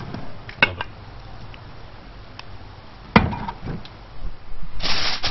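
Two knocks of a glass baking dish being handled against a stainless-steel sink: a light one, then a sharper, louder one about three seconds in. Near the end, aluminium foil starts a dense, continuous crinkling as it is worked over the dish.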